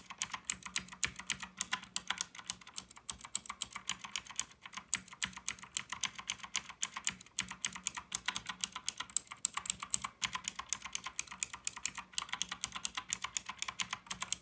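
Fast, steady typing on a Royal Kludge RK61 mechanical keyboard with clicky Cherry MX Blue switches under HyperX pudding PBT keycaps, some keys fitted with O-rings and some without. Several sharp clicks a second, with only brief pauses.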